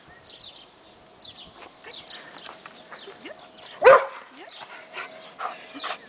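White Swiss Shepherd dog whining and yipping with excitement during trick training, giving one loud bark about four seconds in.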